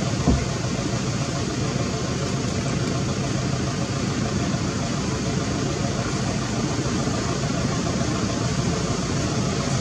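Steady rushing noise with a low rumble and no distinct events, apart from one soft knock just after the start.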